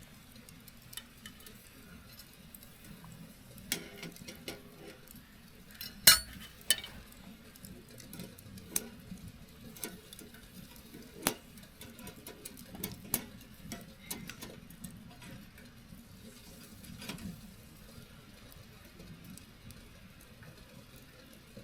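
Wood fire crackling: scattered sharp pops and snaps at irregular intervals over a faint low rumble, the loudest pop about six seconds in.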